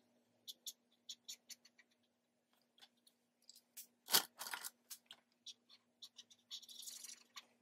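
Marker scribbling on paper: a run of short, quick scratchy strokes, a sharp tap about four seconds in, then a stretch of steady scribbling near the end.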